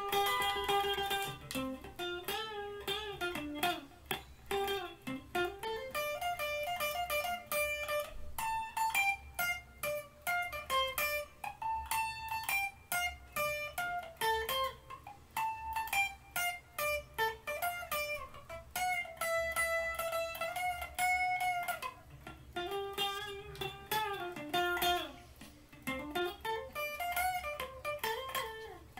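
Electric guitar playing single-note lead lines: quick runs of notes with string bends, and a few long held notes with vibrato, over a steady low hum.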